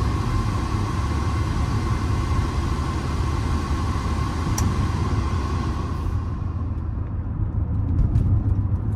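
Inside the cabin of a 1995 Mercedes-Benz E320 on the move: low, steady road and engine rumble, with the rush of the climate-control blower that fades out about six seconds in. A single click comes just before, about four and a half seconds in.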